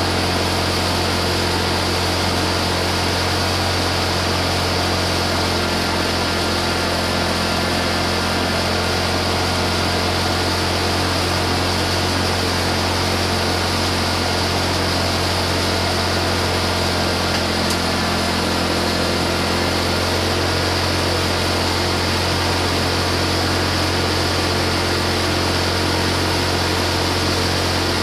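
Honda EU2000i inverter generator's small single-cylinder four-stroke engine running at a steady speed with a low, even hum. It runs normally while its AC outlets give no power.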